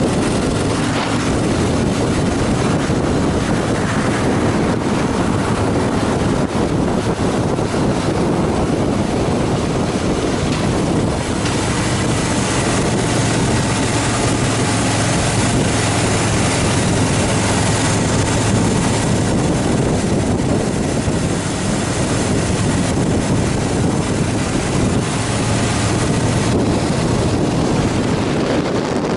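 Harley-Davidson Fat Boy Lo's V-twin engine running steadily at road speed, under heavy wind noise on the microphone, with a steady low drone.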